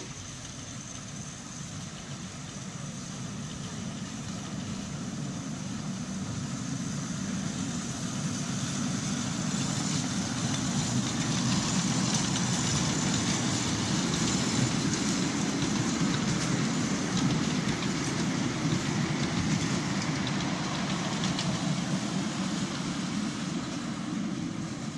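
Miniature railway train, a locomotive hauling passenger-laden ride-on carriages, running past on the track. The rumble builds as it approaches, is loudest from about halfway through as the locomotive and carriages go by, and then eases off slightly.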